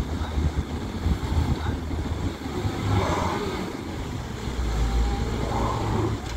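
A motor vehicle's engine running, with a heavy low rumble.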